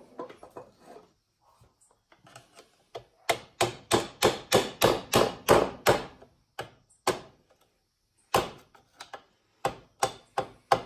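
Rapid sharp hammer-like taps, about four a second for nearly three seconds, then a handful of scattered taps, as the fan blade's retaining clip is tapped back onto the new cooling fan motor.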